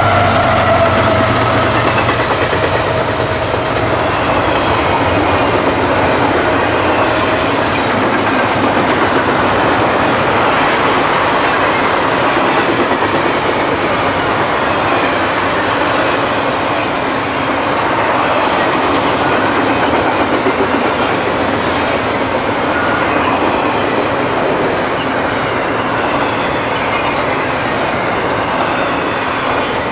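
CSX double-stack intermodal freight train passing at speed. The locomotive's horn fades out over the first few seconds, its pitch sagging slightly as the engines go by. Then comes the steady rumble and clickety-clack of the container cars' wheels on the rails.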